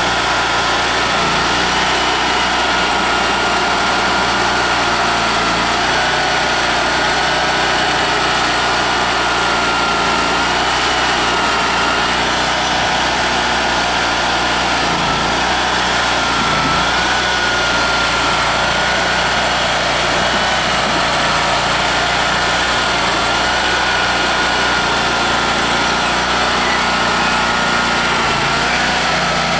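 A Kohler 27 horsepower Command Pro V-twin gas engine on a Carlton SP4012 stump grinder runs steadily. A pitched whine that wavers slightly rides on top of the engine noise.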